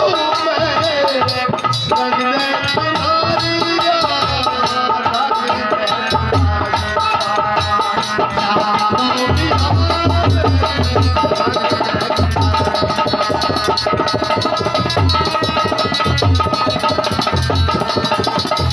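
Indian devotional bhajan music: a wavering melody line over a hand-drum rhythm, with the deep drum strokes growing strong about six seconds in.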